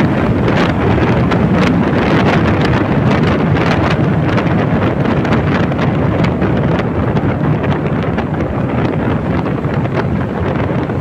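Steady wind buffeting the microphone of a scooter ridden at about 50–60 km/h, with the scooter's running noise underneath.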